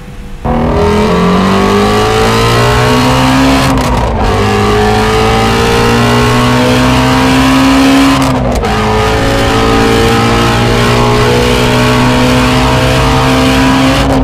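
Stock Ford Shelby GT350R's 5.2-litre flat-plane-crank V8 accelerating hard inside a road tunnel. It opens up suddenly about half a second in, and the revs climb steadily through the gears, with quick upshifts about four and eight and a half seconds in.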